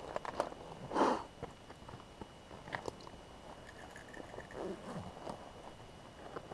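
Footsteps on a rocky trail: irregular scuffs and clicks of shoes on rock and grit, with one louder scrape or rustle about a second in.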